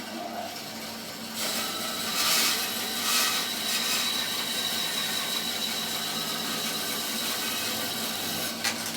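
Record Power BS300E bandsaw running, its blade cutting through a split log held on a sled. The cut gets noticeably louder about a second and a half in, with a steady high whine over the cutting noise.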